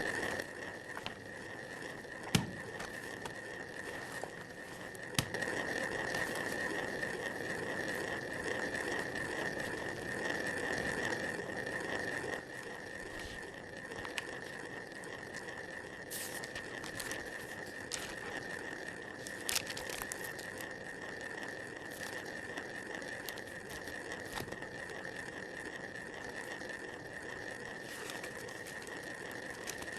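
Quiet room ambience: a steady faint high-pitched hum with soft rustling and a few light clicks.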